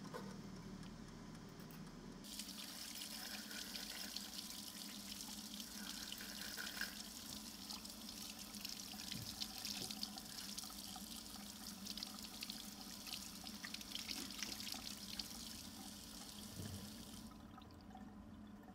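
Tap water running into a sink, splashing over a forged metal coffee scoop being rinsed under the stream. It starts about two seconds in and stops near the end.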